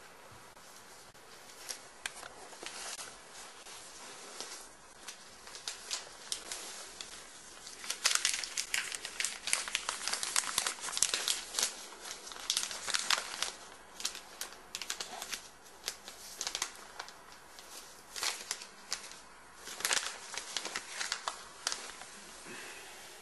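Paper crinkling and crackling in irregular bursts as it is handled, starting about two seconds in, densest and loudest in the middle, and thinning out near the end.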